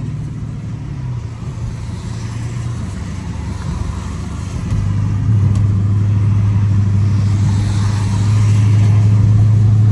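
Dodge Challenger R/T's 5.7-litre HEMI V8 droning steadily at highway speed, heard from inside the cabin, with tyre hiss from the wet road. About halfway through, the engine note steps up louder as the car gathers speed.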